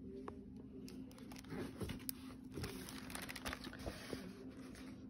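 Plastic-jacketed hardback picture book being opened and its pages turned: crinkling of the plastic cover and soft paper rustles with small taps, over a faint steady low hum.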